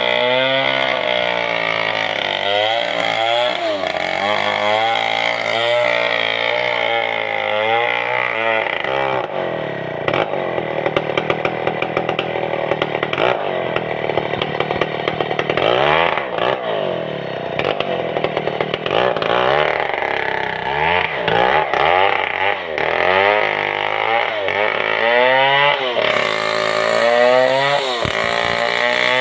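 Stihl 070 two-stroke chainsaw ripping lengthwise through a red sengon log, its engine pitch repeatedly dipping under load and rising again.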